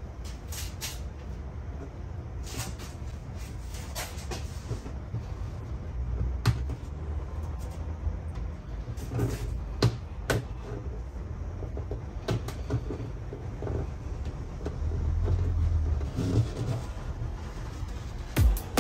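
Hands handling the rear cab window and its surround on a Subaru Sambar kei truck: scattered clicks and knocks as the glass edge and frame are pressed and felt, over a low steady rumble.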